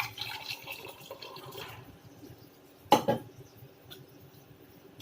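Hot boiled water poured into a container for about two seconds, then a single sharp knock about three seconds in.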